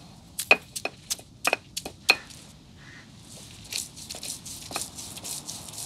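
Hand food-preparation sounds: a quick run of sharp knocks, about eight in under two seconds, then from about three and a half seconds in a rough, rapid crunching scrape.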